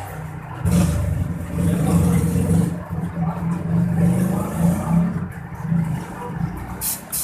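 A low engine rumble, rising and falling as if revving, with a couple of sharp clicks near the end.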